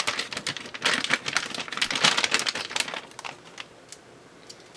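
Plastic packaging crinkling and crackling as it is handled for about three seconds, then dying down to a few faint clicks.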